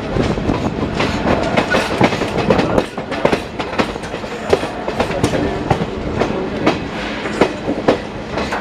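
Wheels of a moving passenger train clattering over rail joints and points: an irregular run of sharp clicks and knocks over the steady running noise of the coach.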